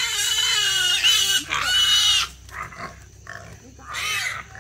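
Piglets squealing: several loud, high squeals in quick succession over the first two seconds, then one more near the end.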